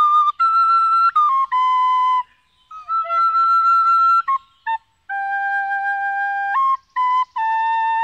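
Flute playing a slow melody of held notes that step up and down in pitch, with short breaks a little over two seconds in and again near five seconds.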